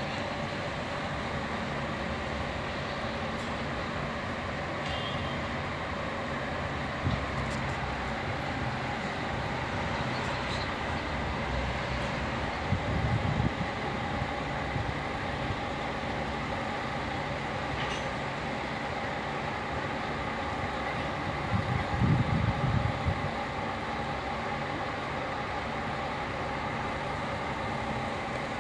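Diesel regional train idling at the platform: a steady engine hum with a faint high whine. It swells twice into brief low rumbles, about halfway through and again some nine seconds later.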